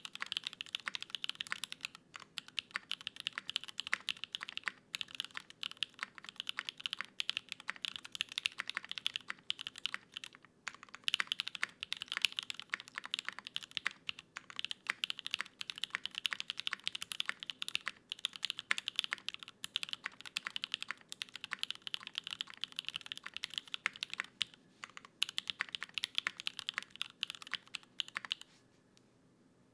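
Steady fast typing on a Singa Kohaku custom mechanical keyboard: lubed and filmed Gateron Cream Soda linear switches in a gasket-mounted aluminium plate with no foam, under GMK ABS keycaps. The typing pauses briefly twice and stops near the end.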